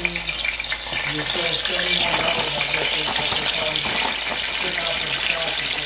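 Battered chicken tenders frying in hot oil in a pan: a steady sizzle with crackling pops.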